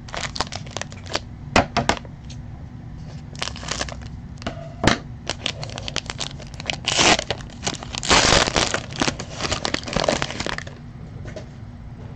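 A foil baseball card pack being torn open and its wrapper crinkled: a run of sharp crackles and rustles, loudest about seven to nine seconds in.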